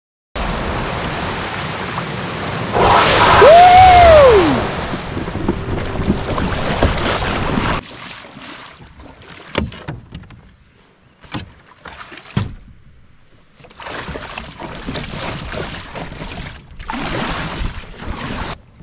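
Wind and choppy sea water rushing over a kayak-mounted camera microphone, loudest as a whoosh about three seconds in that carries a short cry rising and then falling in pitch. After about eight seconds it drops to calm water with small drips, splashes and knocks from a kayak paddle.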